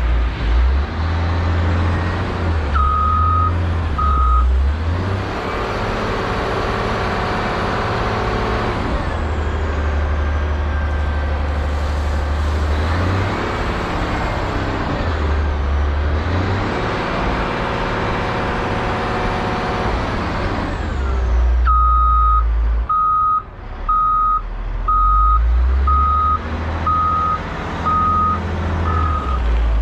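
Heavy diesel equipment running, with a reversing alarm beeping about once a second: two beeps near the start, then a steady run of beeps over the last eight seconds. Between them come two long swells of rushing noise over the engine.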